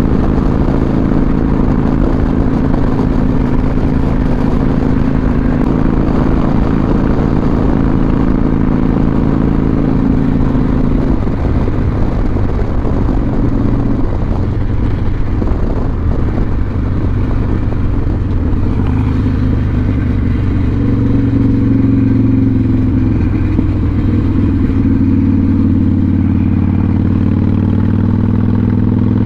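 Cruiser motorcycle engine running under way at road speed, heard from the rider's seat with a rush of wind over it. The engine note shifts to a lower pitch about eleven seconds in, the wind eases, and the engine note climbs slowly near the end.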